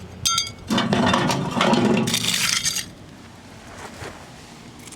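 A short metallic clink that rings for a moment, then about two seconds of metal scraping and rattling as the burnt biscuit tin is handled; it stops just before the halfway point.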